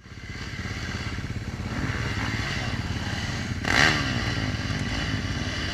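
Off-road dirt bike engines running steadily. About four seconds in comes a sudden loud burst as an engine revs and its pitch falls away while a bike crashes alongside.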